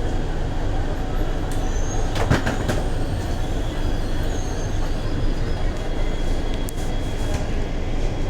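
Mumbai Metro train running between stations, heard from inside the car: a steady low rumble with a few sharp clicks about two seconds in and again later, and a faint high wheel squeal.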